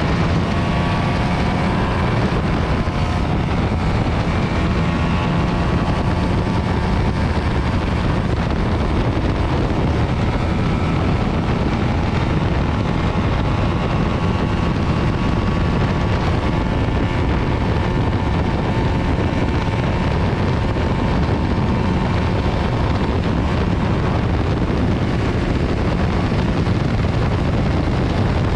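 Heavy wind rush over the microphone of a sport motorcycle at high speed, with the bike's single-cylinder engine running under throttle beneath it, its pitch slowly rising at times.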